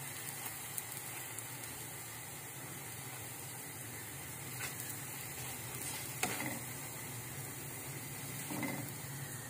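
Gram-flour batter (besan cheela) sizzling steadily in hot desi ghee in a frying pan, with a few light clicks along the way.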